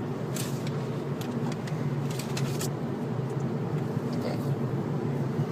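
Steady drone of a car running, heard from inside the cabin, with a few short clicks and crackles about half a second, a second, and two seconds in.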